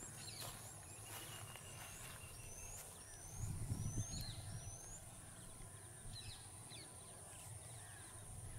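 Open-air ambience beside an elephant herd: birds calling in short rising chirps over a steady high whine. A low rumble rises about three seconds in and fades a second later.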